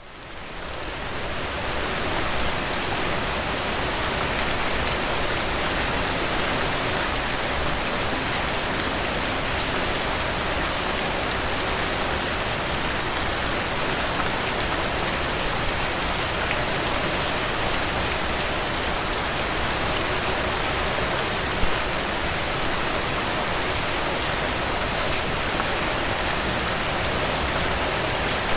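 Steady rain falling on leaves, with many individual drops ticking through the patter. It fades in over the first two seconds, then holds an even level.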